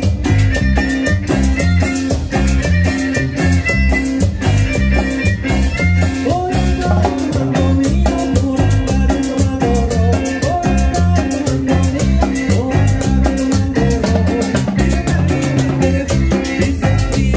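Live Latin dance band playing an upbeat number with a steady beat: keyboard, electric guitar, drum kit, congas and a metal güira scraper.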